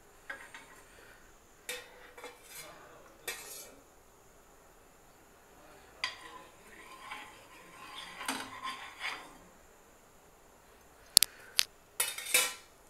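Metal clinks and knocks of a steel cup and a nonstick pan on a gas stove as cooking oil is poured into the pan, in scattered light taps. There are several sharp, loud clacks near the end.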